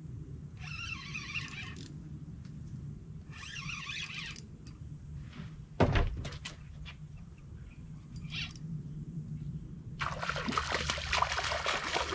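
A hooked softshell turtle thrashing and splashing at the water's surface beside the boat, starting about ten seconds in. Before it comes a single loud thump on the boat, about six seconds in, and a few brief chattering bursts early on.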